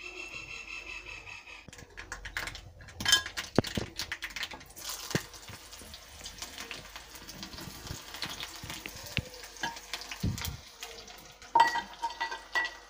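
Mustard seeds popping and crackling in hot oil in a small iron pan, with sharp pops scattered through a steady sizzle as sliced onion fries for the tempering.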